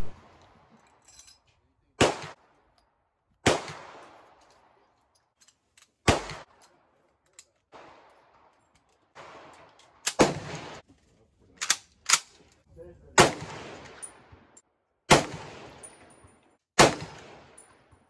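Gunshots on a shooting range, among them an M1 Garand firing .30-06 M2 ball rounds: about nine sharp reports at irregular spacing, seven of them loud and two fainter ones near the middle, each trailing off in an echo.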